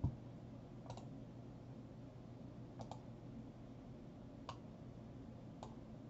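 Faint, scattered clicks of a computer pointing device while on-screen annotations are drawn, about one a second with a quick double click near the middle; the first, at the very start, is the loudest.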